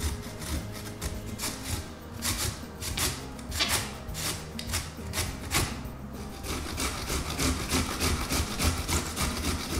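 Carrots being grated on the coarse side of a stainless steel box grater: repeated rasping strokes, about two a second.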